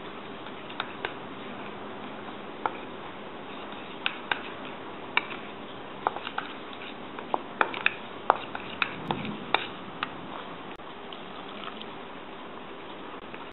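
Metal spoon clinking against a stainless steel bowl while stirring flour: irregular sharp clicks, thickest between about four and ten seconds in, over a steady hiss.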